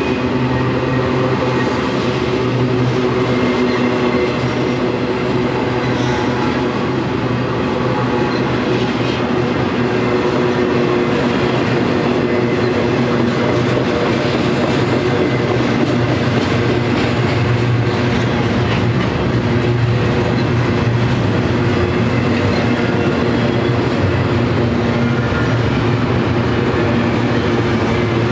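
Double-stack container train's well cars rolling past: a steady rumble of steel wheels on rail, with a humming tone running under it.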